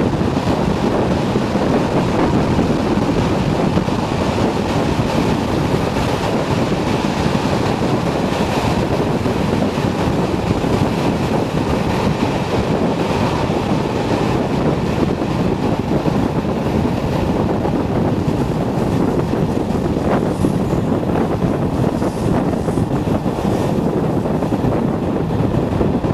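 A train hauled by a Class 37 diesel locomotive, heard from an open carriage window: a steady rush and rumble of the running train, with wind buffeting the microphone.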